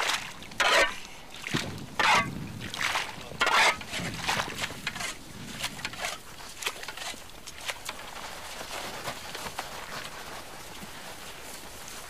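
Przewalski's horse slurping water from a shallow puddle on ice: four loud, short wet sucking sounds in the first four seconds, then quieter irregular sips and splashes that fade into a faint steady hiss.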